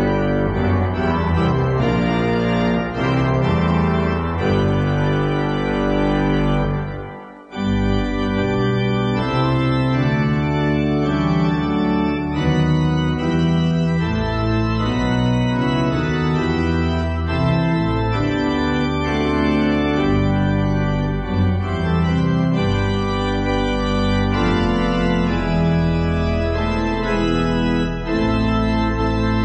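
Television closedown music played on an organ, long held chords over a bass line. It drops out briefly about seven seconds in, then carries on.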